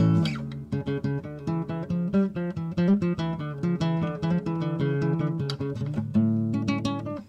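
Background acoustic guitar music: a loud chord at the start, then a run of quick plucked notes over low sustained tones, breaking off briefly at the very end.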